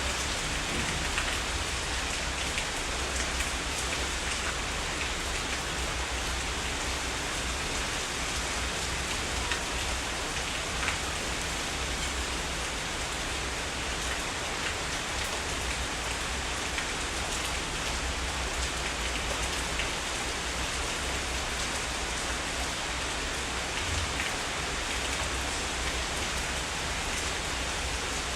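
Heavy rain falling steadily, a dense even hiss with a few louder drops standing out and a low rumble underneath.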